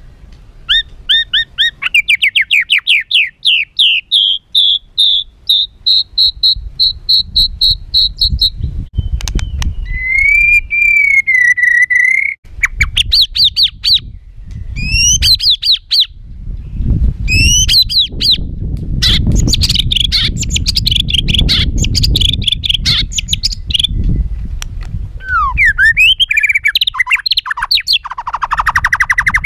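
White-rumped shama (murai batu) singing an agitated, harsh song: a fast run of repeated sharp notes, then a slurred whistle, sweeping calls and rapid trills, over a low background rumble.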